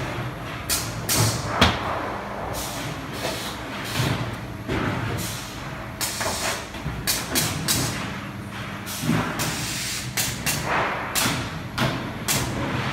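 Factory machinery running with a steady low hum, broken by many irregular sharp knocks and clanks and a few short hisses.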